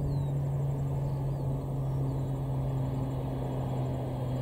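Jet engines of a Boeing 777-200ER on final approach, a steady low drone as the airliner comes in with its landing gear down. The aircraft is powered by Pratt & Whitney PW4000-series turbofans.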